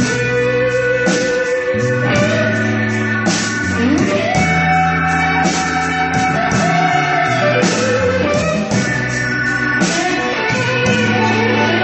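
Live band playing blues-rock, an electric guitar to the fore over a bass line and drums.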